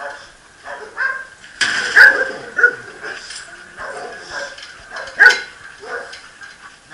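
Shelter dogs barking from their kennel enclosures. There are several sharp, loud barks about two seconds in and again just after five seconds, with quieter barking and yips in between.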